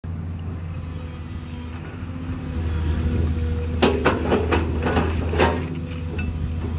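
Hydraulic excavator's diesel engine running steadily, with a quick run of clanks and knocks from the machine about four seconds in, as it works its bucket.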